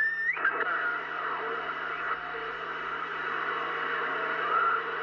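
CB radio receiving on 27.005 MHz (channel 4): steady band-noise hiss through the speaker, with faint wavering skip signals from distant stations under it. A short whistle rises in pitch right at the start.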